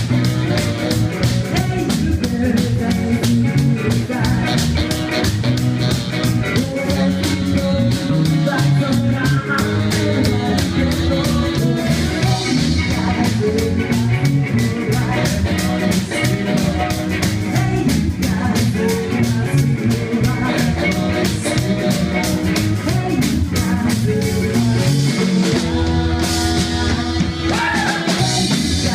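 Rock band playing live: electric guitars, bass and drums with a fast, steady beat, and singing.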